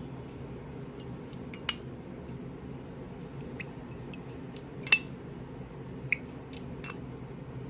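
Scattered small clicks and taps from handling a perfume box and its glass bottle, two of them sharper (about two seconds in and about five seconds in), over a steady low hum.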